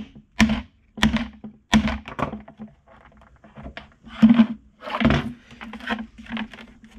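Hard plastic knocks and thunks from a Jeep Grand Cherokee WJ taillight housing as a screwdriver is banged into the glued seam between lens and housing and the housing is turned over on the bench. Three sharp knocks come in the first two seconds, then a few more about four and five seconds in.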